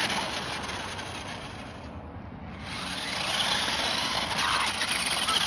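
Remote-control Megalodon monster truck driving through a puddle on wet pavement: an electric motor whine with the rushing hiss of its tyres and spray. It eases off about a second and a half in and picks up again about three seconds in.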